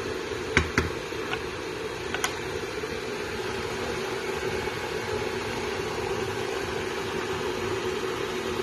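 Wooden spoon knocking against the side of a pot while stirring: two sharp knocks just under a second in, then a couple of fainter taps, over a steady hum and hiss.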